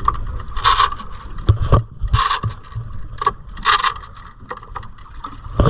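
Small outboard motor being pull-started by its recoil starter cord three times, each pull brief and about a second and a half apart, without the engine catching: the motor has broken down. Wind buffets the microphone throughout, with a few knocks in between.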